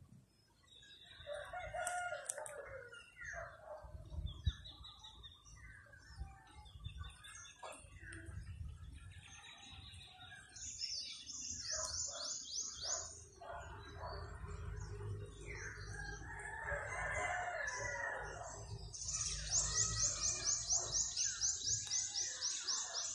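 A rooster crowing, twice. Small birds call around it with fast high-pitched trills of repeated notes, one about halfway through and a longer one near the end, over a low rumble.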